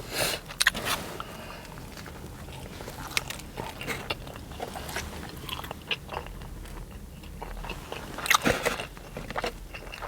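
Biting and chewing of a toasted sub sandwich close to the microphone, with small crunches from the bread; the loudest bites come just after the start and again near the end.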